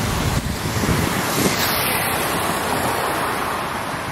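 SMRT Kawasaki C151B electric metro train running on an elevated viaduct, heard as a steady rushing noise mixed with road traffic and wind buffeting the microphone.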